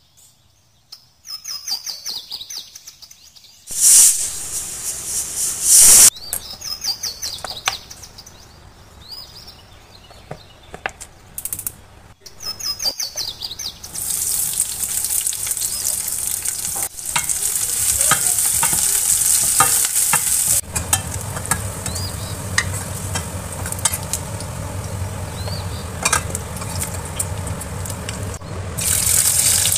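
Sliced onions sizzling in hot oil in a steel pan, a steady sizzle from about halfway through. Earlier there are two short, loud hisses and a few bird chirps.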